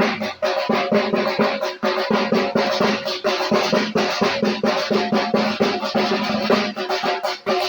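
Music dominated by fast, steady drumming, with a dense run of strokes throughout.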